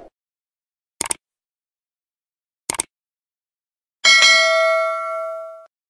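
Two short mouse clicks about a second and a half apart, then a bell rings once and fades over about a second and a half: the sound effects of a YouTube subscribe-button animation.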